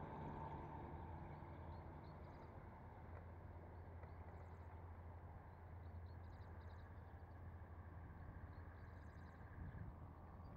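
Quiet open-air ambience: a faint steady low hum with short, high bird chirps now and then.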